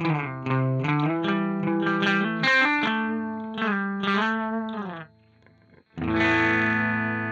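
Electric guitar played through a Dolamo D-14 delay pedal: a run of picked notes, a short pause, then a chord struck about six seconds in and left ringing.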